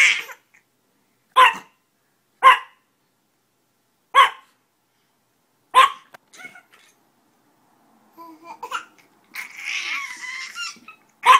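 Small Chihuahua-type dog giving single sharp yaps, about five of them spaced a second or more apart. A baby babbles and laughs for a couple of seconds near the end.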